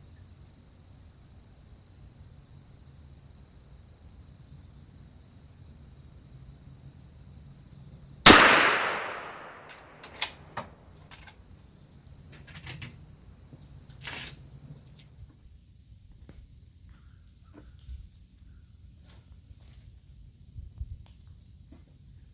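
A single rifle shot from a Winchester Model 1894 lever-action in .30 WCF (.30-30), about eight seconds in, with its report dying away over about a second. A few sharp clicks follow over the next several seconds. Steady high insect chirring runs in the background; it falls away after the shot and returns later.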